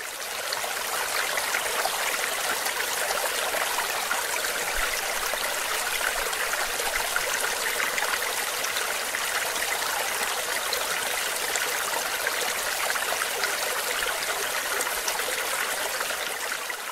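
Small waterfall cascading over boulders into a pool: a steady rush of falling and splashing water, fading in over the first second or so and fading out near the end.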